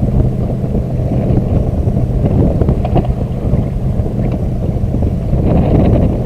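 Strong wind buffeting the microphone, a dense low rumble. A steady low hum fades out about two and a half seconds in, and a few small knocks come later.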